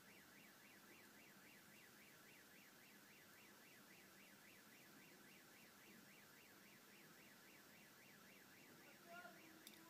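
Faint car alarm warbling rapidly up and down, about three times a second, without a break. A short click sounds near the end.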